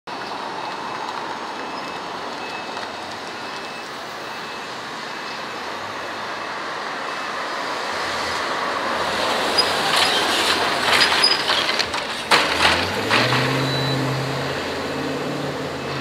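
Outdoor traffic noise: a road vehicle passes close by. Its noise swells and peaks with a few sharp rattles about ten to thirteen seconds in. A low steady engine hum then sets in and continues.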